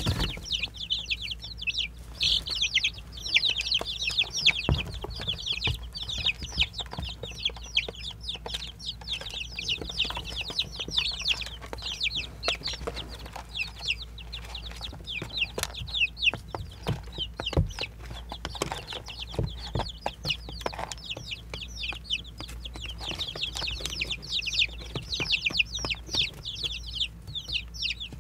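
A group of baby chicks peeping continuously: many short, high, falling peeps overlapping, with a few soft knocks now and then.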